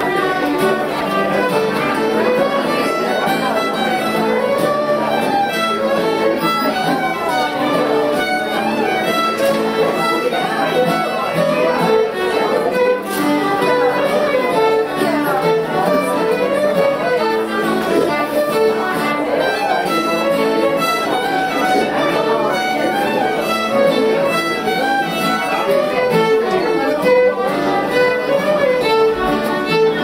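Acoustic string music led by a fiddle, playing continuously.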